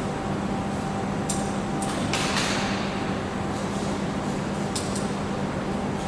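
Factory machinery ambience: a steady machine hum with a brief hiss about two seconds in and scattered sharp clicks and knocks.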